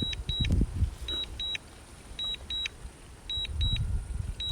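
Drone remote controller alert beeping, short high double beeps about once a second, sounding while the DJI Neo is on return-to-home in strong wind. Gusty wind rumbles on the microphone underneath.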